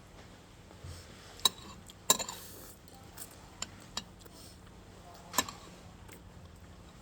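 Utensils clinking and tapping against plates and bowls while eating: half a dozen sharp clinks, the loudest about one and a half, two, and five and a half seconds in.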